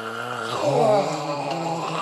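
A person's long, held moaning voice on one low pitch, with a higher voice sliding up and down briefly about half a second in, the loudest moment.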